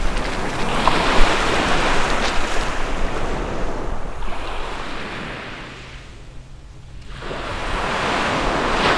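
Sea waves washing in on a pebble beach, with wind: the wash swells, dies away about six seconds in, and builds again near the end.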